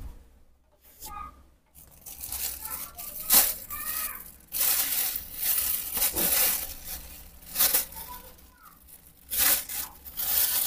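Repeated bursts of rustling and scuffing noise, with a few faint short squeaks between them.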